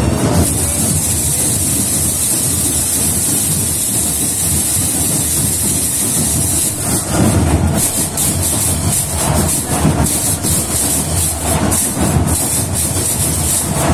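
Marching band's drum line playing a loud street cadence: heavy drums under a steady high cymbal wash, breaking into repeated sharp cymbal and drum hits from about halfway through.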